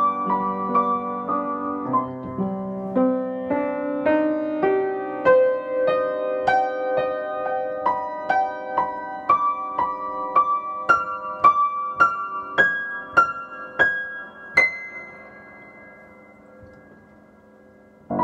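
Solo piano improvisation built on the notes of C minor, F minor and G major: a melody of struck notes over chords that climbs steadily higher, ending on a high note about three quarters of the way through that rings out and fades. A new chord sounds right at the end.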